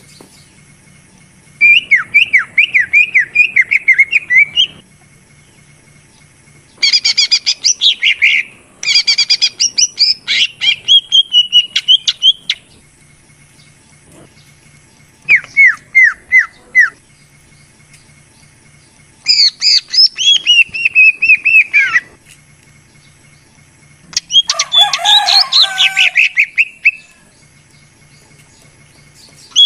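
Green leafbird (cucak ijo) song: six bouts of rapid, repeated high chirping notes, each a few seconds long, with short pauses between them.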